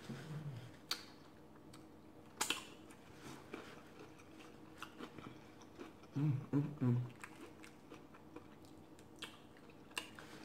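Close-up chewing of a beer-battered fried fish taco, with scattered crisp clicks from the batter and one sharp crunch about two and a half seconds in. Brief low hums come at the start and again about six seconds in, and a short smack near the end as fingers go to the lips.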